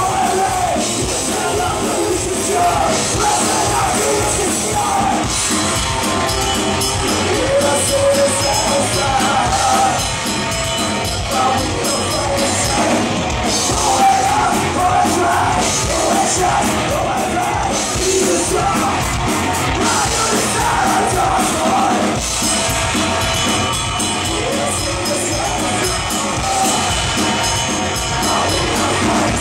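Live rock band playing loud: electric guitar and drums, with a singer yelling into the microphone.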